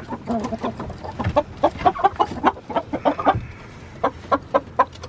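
Chickens clucking in the coop: a quick run of short calls several a second, easing off briefly about three and a half seconds in before picking up again.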